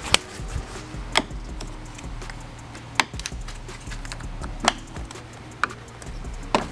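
A small screwdriver working plastic fasteners under a car's front end: about six sharp, irregularly spaced clicks and taps over a low steady hum.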